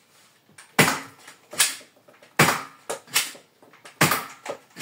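Nerf Alpha Strike Fang spring-powered dart blaster being primed and fired in turn: a run of about five sharp plastic clacks, roughly one every three-quarters of a second.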